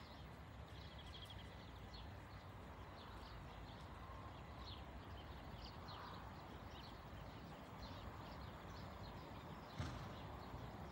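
Faint hoofbeats of a ridden horse moving over a sandy arena, with birds chirping faintly. One sharper, louder thump comes near the end.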